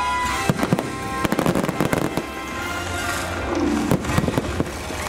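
Fireworks show going off in quick volleys of sharp bangs, one volley starting about half a second in and another around four seconds in, over show music.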